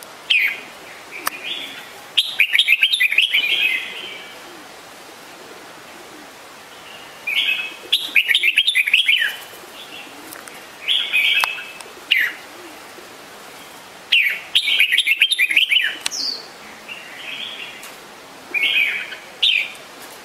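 Red-whiskered bulbul calling: short bursts of quick, sliding notes come every two to three seconds, and some of them are longer, rapid chattering phrases.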